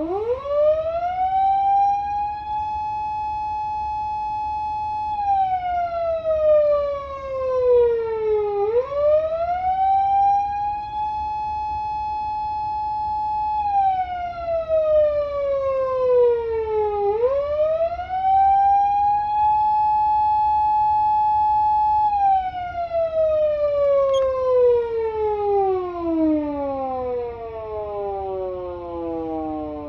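PATLITE SAP-500BK electronic siren amplifier sounding a Japanese police-car wail through its speaker in the 8-second cycle mode. The pitch rises over about two seconds, holds for a few seconds, then falls slowly, repeating three times; the third fall keeps dropping and fades out near the end as the siren is switched off.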